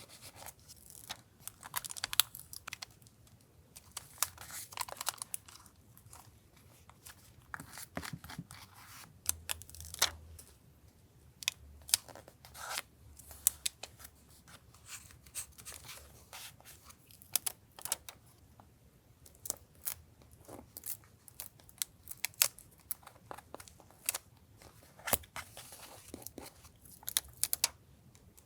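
Paper-crafting sounds from journal collage work: paper and stickers crinkling, tearing and being cut, in a run of short, irregular crisp scratches and clicks.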